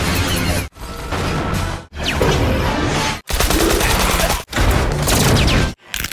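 A string of cartoon and TV soundtrack snippets, each about a second long and cut off abruptly by a short silence. They mix background music and sound effects, including a burst of automatic rifle fire.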